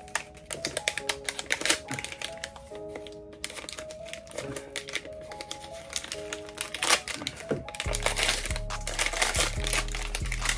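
Tissue paper crinkling and rustling in quick irregular clicks as a wrapped pistol magazine is unwrapped by hand, over background music; a bass beat comes into the music about eight seconds in.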